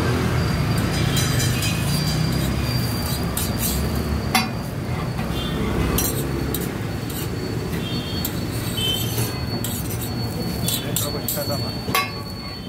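A metal spatula clinks and scrapes on a flat dosa griddle, with sharp clinks scattered through, over background chatter and a low hum that fades after the first few seconds.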